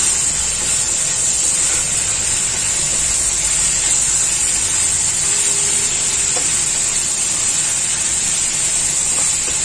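Bok choy, carrots and bacon sizzling in a hot wok as they are stir-fried and tossed with a wooden spatula: a steady frying hiss.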